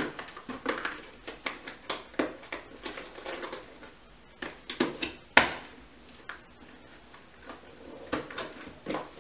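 Cardboard box of a hand mixer being opened and handled: flaps and a paper insert rustling, with scattered small taps and one sharp snap about five seconds in.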